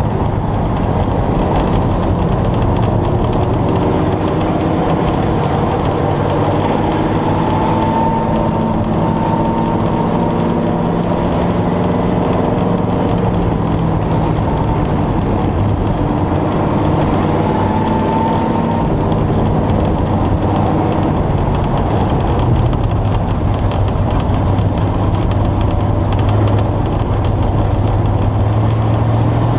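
Vintage dirt-track race car's engine running hard at racing speed, heard close to its open air cleaner. The engine's pitch rises and falls several times as the throttle is worked through the corners.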